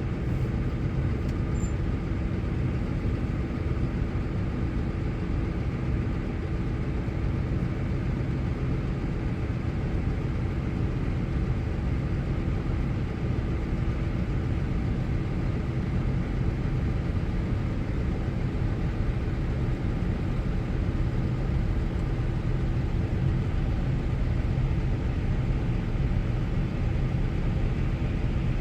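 Case IH Puma tractor engine running steadily while pulling a loaded grain trailer, a constant low hum heard from inside the cab.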